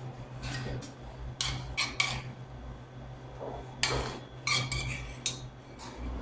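A metal spoon scraping and clinking against a stainless-steel frying pan as tomato chutney is spooned out of it, a string of short sharp clinks and scrapes. A steady low hum runs underneath.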